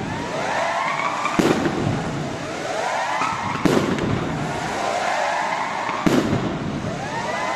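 Aerial firework shells bursting: three sharp bangs about two to two and a half seconds apart. Each bang is followed by a spray of rising whistling tones.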